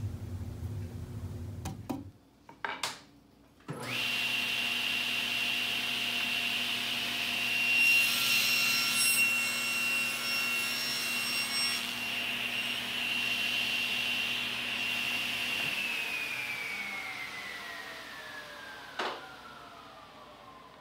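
SawStop table saw switched on, its motor and blade running up to a steady high whine. It cuts a board for a few seconds in the middle, the sound growing fuller and louder during the cut. It is then switched off, and the whine falls steadily in pitch as the blade spins down.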